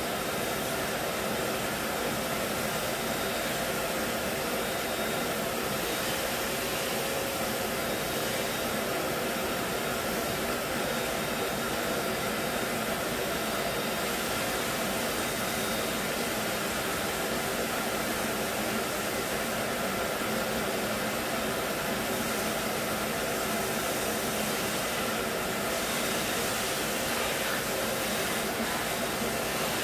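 Vacuum cleaner running steadily through a long hose: an even rush of air with a steady motor tone under it.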